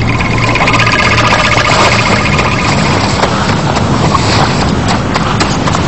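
Rapid footfalls of running animals over a steady, dense rumbling noise.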